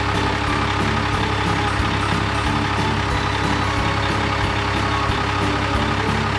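Cartoon truck engine sound effect running steadily with a low hum.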